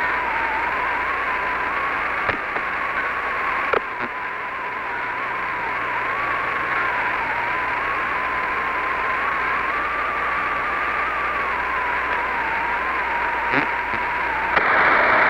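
Hiss on the Apollo 11 air-to-ground radio link, with a wavering tone running through it and a few clicks. Near the end the hiss turns suddenly louder and brighter, and a lower steady tone comes in.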